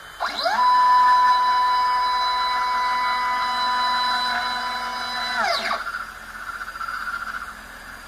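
Ultimaker 3D printer's stepper motors whining through a print move. A stack of tones rises in pitch just after the start, holds steady for about five seconds, then falls away, as the print head speeds up, travels and slows. A softer buzz follows.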